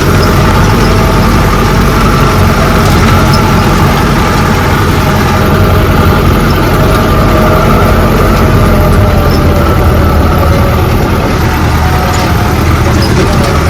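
A vehicle's engine running steadily with road noise during a ride, a constant drone with no pauses.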